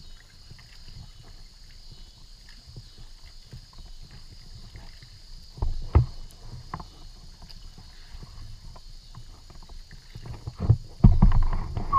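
Paddling a folding kayak: the double-bladed paddle dips and splashes and knocks now and then against the boat. The loudest knock comes about six seconds in, and several louder strokes come near the end.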